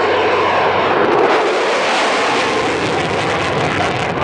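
Loud, steady jet engine noise from a four-ship formation of USAF Thunderbirds F-16 fighters flying overhead.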